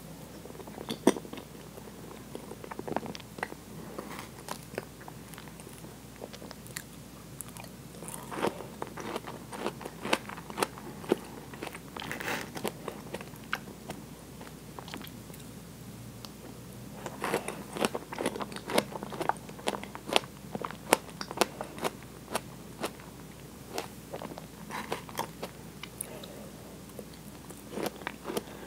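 Mouth chewing whipped cream and strawberries, with bouts of wet clicks and smacks separated by quieter stretches.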